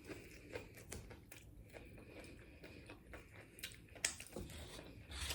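Close-miked chewing of a mouthful of taco: soft, scattered mouth clicks and smacks, with a slightly louder smack about four seconds in and another near the end.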